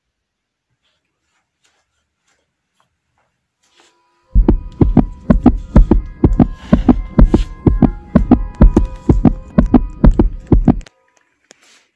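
Edited-in heartbeat-style sound effect: a fast run of heavy low thuds over a steady held tone, starting suddenly about four seconds in after a quiet start and cutting off abruptly near the end.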